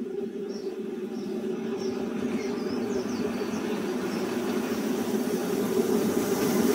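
Small electric ride-on locomotive running on 5-inch gauge rails, its motor and wheels on the track making a steady sound that grows louder as it approaches. Birds chirp faintly in the first few seconds.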